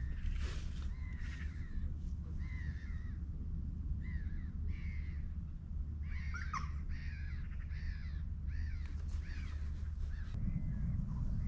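A bird giving a series of short, harsh, caw-like calls, a dozen or so, coming most thickly in the middle, over a steady low rumble that swells near the end.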